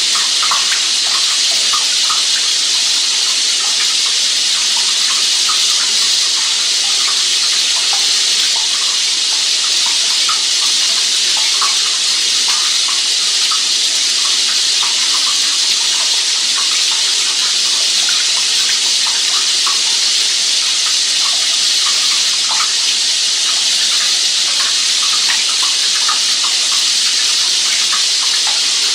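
Steady rush of running water, an even hiss with small splashes scattered through it.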